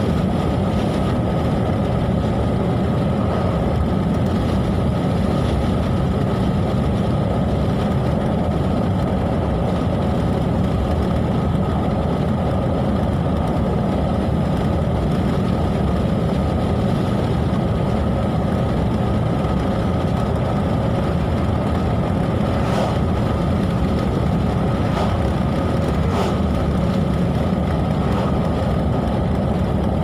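Steady road and engine noise of a car driving at highway speed, heard from inside the cabin.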